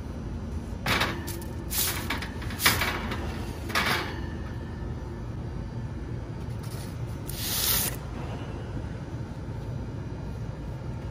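A wooden peel scraping and rustling on parchment paper as a baked sourdough loaf is slid out of the oven: several short scrapes and a sharp knock in the first four seconds, then a longer scrape about seven seconds in, over a steady low hum.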